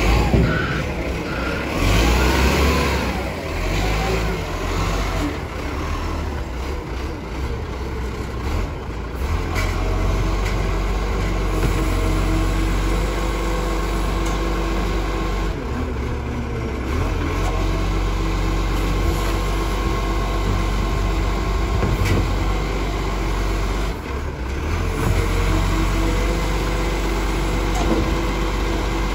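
Iveco side-loading garbage truck running steadily, its hydraulic arm lifting and tipping wheelie bins into the body, with the engine drone and a steady pump tone underneath.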